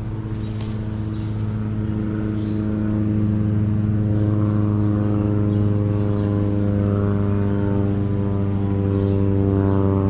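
A machine runs with a steady low hum and even overtones, growing a little louder about three seconds in. A single sharp click comes about half a second in.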